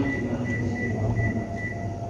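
Panasonic Eolia CS-E938K split air conditioner running: a steady low hum, with a thin high tone that pulses on and off about twice a second.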